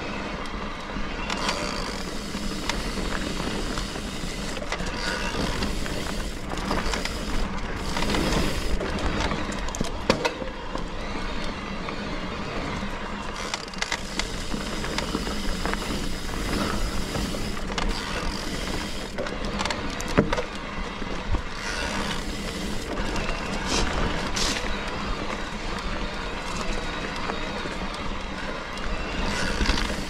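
Trek Rail 7 electric mountain bike ridden along a rough dirt trail: a steady rush of tyre and wind noise with frequent rattles and knocks from the bike over the ground.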